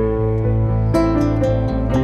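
Soft instrumental background music with plucked notes.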